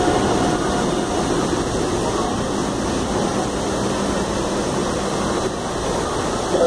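Steady ambient noise of a busy commuter train station platform: a low, even rumble with no distinct event, and a brief louder bump near the end.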